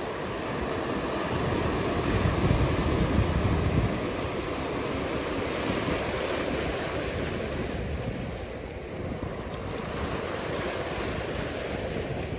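Ocean surf: a steady rush of breaking and washing waves, with a louder low rumble in the first few seconds.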